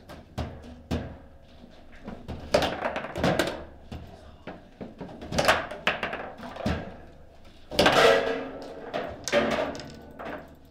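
Foosball table in play: the ball and the rods' plastic players knocking and clacking in a string of sharp, uneven hits. The loudest clatter comes about eight seconds in, with a short ringing, as the ball goes into the goal.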